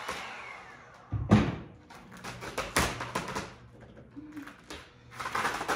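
A heat gun's fan winding down with a falling pitch after it is switched off. Then come irregular rustles, rubs and knocks as vinyl wrap film is stretched and smoothed by hand over a car roof, the loudest a little over a second in.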